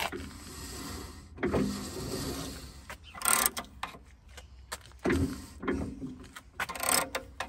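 Ratcheting box-end wrench working a tractor's brake adjusting bolt, its pawl clicking in back-and-forth strokes: two longer runs of clicking, then several short sharp bursts.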